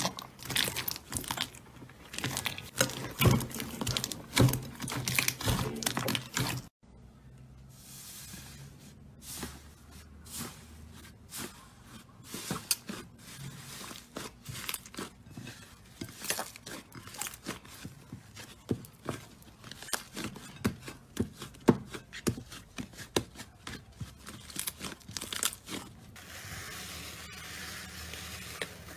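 Slime being squeezed, poked and stretched by hand, giving dense crackling and popping clicks. Early on the clicks are loud and packed together. After a sudden cut a quarter of the way in, they come sparser and quieter, and near the end they give way to a soft hiss.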